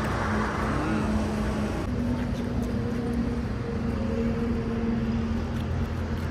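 Car driving: steady engine and road noise with a constant hum, which shifts slightly about two seconds in.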